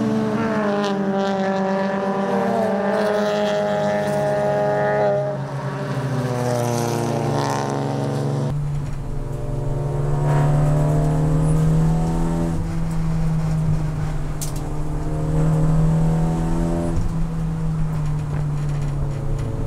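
Honda Civic Type R CNF-R race car's turbocharged four-cylinder engine at racing speed. First it is heard from the trackside as the car goes by, its pitch falling. From about eight seconds in it is heard from inside the cockpit, running hard, with its pitch rising and dropping through throttle and gear changes.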